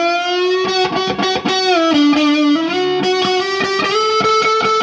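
Gibson Les Paul electric guitar played through an amp: a single-note lead line of picked notes with long held notes and bends.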